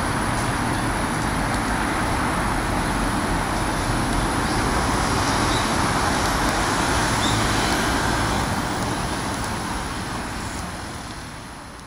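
Steady background rumble of distant road traffic, fading out near the end.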